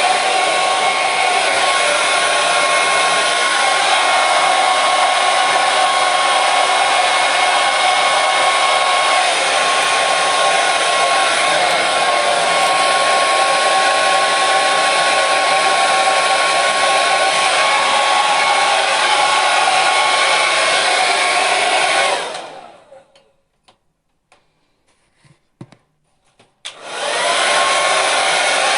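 Hair dryer running with a steady rush of air and a thin motor whine. About 22 seconds in it is switched off and runs down within a second, leaving near silence with a few faint clicks. Near the end it is switched back on and quickly comes back up to speed.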